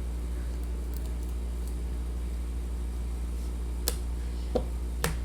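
Trading cards being handled and shuffled through, giving three short clicks in the last second and a half, over a steady low hum.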